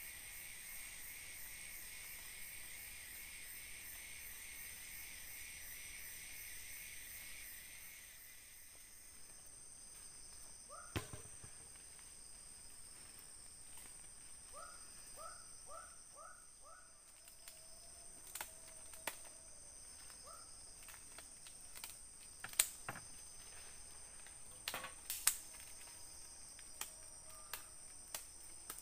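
Forest insects buzzing in steady high tones, with a pulsing trill that stops about eight seconds in. A few short chirps, including a quick run of four, and scattered sharp clicks and taps break in during the second half.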